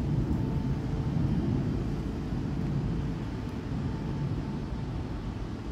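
Inland cargo ship's engine droning as the vessel passes on the river, a steady low rumble that slowly fades.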